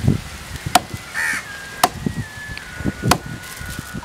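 Knife chopping into a large fish on a chopping block: four sharp knocks about a second apart. A short bird call sounds once, a little after one second in.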